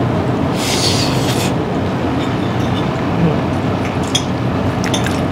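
Steady background din of a busy restaurant dining room, with a short hiss about a second in and a couple of light clicks near the end.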